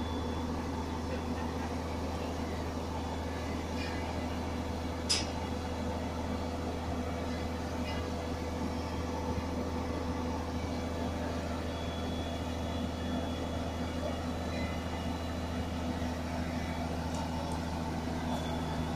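Diesel engine of a truck-mounted mobile crane running steadily under load while the hook block is winched up the telescopic boom, with one sharp click about five seconds in.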